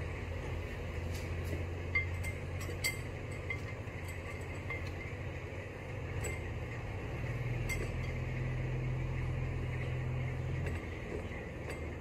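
A few sharp clinks against a glass mixing bowl as a whole raw chicken is handled in it, over a steady low hum that drops away near the end.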